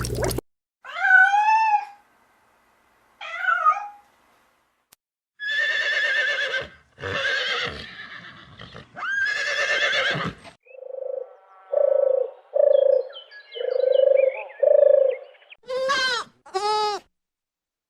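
A series of separate animal calls with silent gaps between them: several longer wavering calls in the first half, a run of five shorter, lower calls in the second half, and two quick calls near the end.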